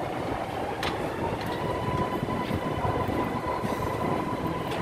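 MRT Blue Line metro train running on the elevated track: a steady rumble with a thin high whine that sets in about a second in and holds, and a few sharp clicks.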